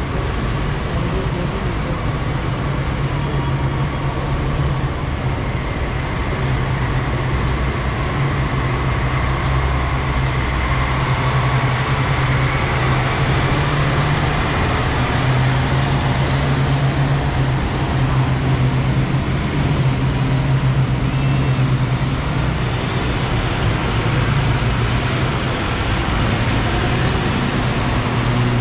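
Heavy multi-axle military missile-launcher trucks driving slowly past close by, their engines running with a steady low hum over the hiss of tyres on the wet road.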